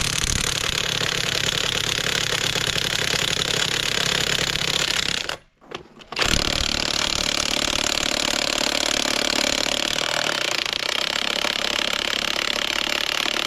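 Milwaukee cordless impact wrench hammering on a lug nut in two long runs, the first stopping about five seconds in and the second starting again a second later. The nut is seized with rust and is not breaking loose.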